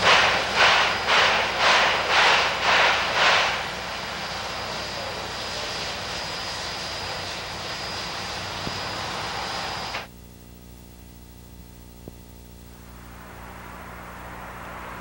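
Steam locomotive exhaust, C&O 2716, a 2-8-4, chuffing at about two beats a second. After about three seconds the beats fade into steady running noise. About ten seconds in, the sound cuts off abruptly to a quieter low hum that slowly builds.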